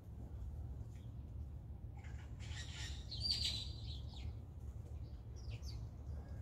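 Blue jay giving one loud, harsh call about two and a half seconds in, then a few fainter short calls near the end, over a steady low background hum.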